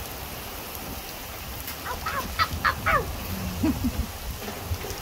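Steady rain falling, with a bird calling several times in quick succession about two seconds in.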